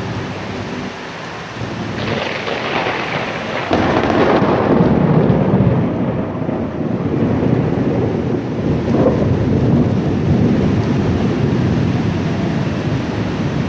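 Thunder over steady rain: the rumble swells about two seconds in, then breaks out loud just before four seconds and rolls on for several seconds.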